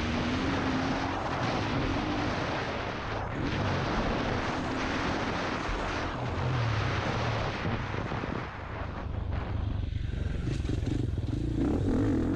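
Dirt bike engine under way, revving up and down as the throttle opens and closes, heard from the rider's helmet; it eases off about eight seconds in and then pulls hard again near the end.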